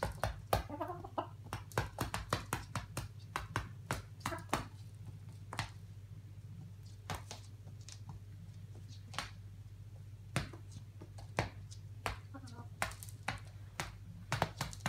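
Hens pecking corn off a hard wood-effect kitchen floor: sharp, irregular taps of beaks on the boards, coming in quick clusters of several a second with sparser stretches between.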